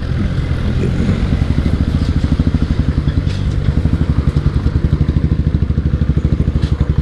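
Royal Enfield Bullet motorcycle's single-cylinder engine running at low road speed, its exhaust beating in a rapid, even thump, while the bike rides over a rough gravel track.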